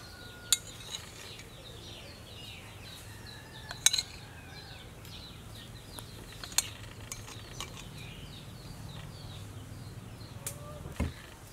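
A metal spoon clicking a few sharp times against a metal steaming pan as egg yolks are set onto the mixture, over a steady low hum and faint high chirps.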